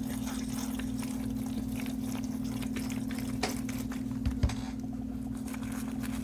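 Water squeezed from a plastic squeeze bottle trickling into a small cup of loose potting mix, with the soil crackling under the fingers and a soft knock about four and a half seconds in. A steady low hum runs underneath.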